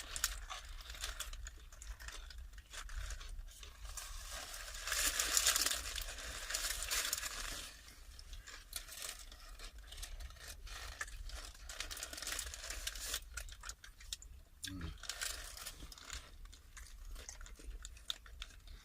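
Close-up eating sounds of a lamb wrap being finished: chewing and crunching, with crinkling and tearing of its wrapping. Loudest about five to seven and a half seconds in.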